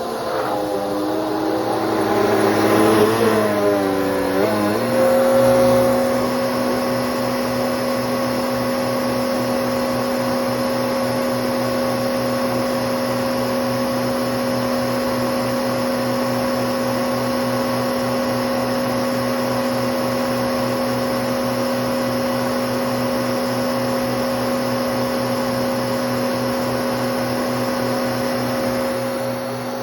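Bissell Powerforce Helix 3313 upright vacuum cleaner running. Its motor pitch wavers over the first few seconds, then holds a steady hum.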